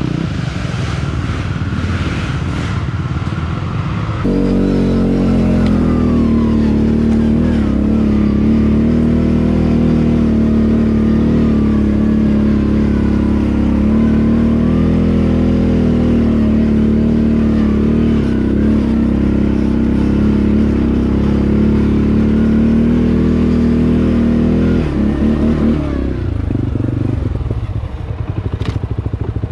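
ATV engine held at high, steady revs under hard load. About four seconds in it climbs to an even pitch and holds there for some twenty seconds, then drops back to a rougher, lower running.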